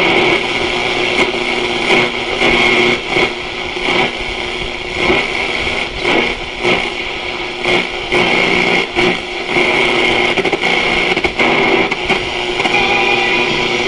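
Frahm RC 300 table radio's speaker giving steady static and hiss with a whistling interference tone, tuned off a station, broken by frequent crackles and brief dropouts.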